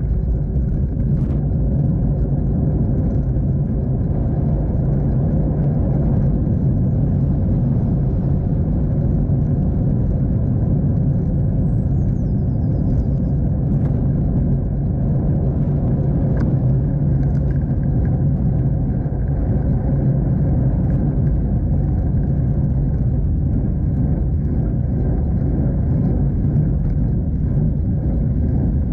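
Steady low rumble of wind buffeting and tyre-on-road noise, picked up by a bicycle-mounted action camera while riding, with a few faint clicks.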